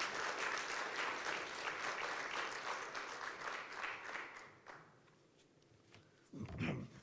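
Audience applause that dies away after about four to five seconds, followed by a short low thump near the end.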